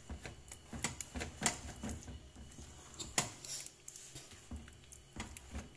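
Black plastic spoon stirring a thick meat sauce in an aluminium pot, knocking and scraping against the pot in irregular clicks, with two sharper taps.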